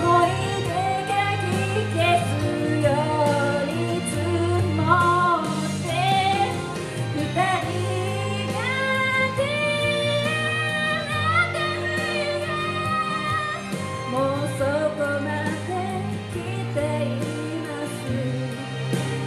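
A woman singing a song into a handheld microphone, amplified through PA speakers, in long gliding notes over an instrumental backing with a steady low bass.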